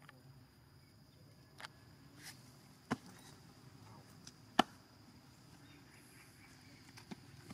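Quiet forest ambience with a steady high-pitched insect drone, broken by three sharp clicks, the loudest about four and a half seconds in.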